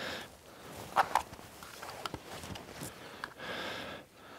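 A man breathing, twice, with a few sharp clicks and knocks from handling a phone and its camera and flashlight rig. The loudest is a quick double click about a second in.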